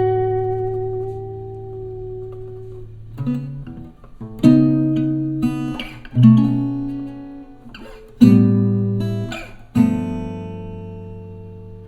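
Background music: an acoustic guitar strumming chords that ring out and fade, with a new strum every second or two.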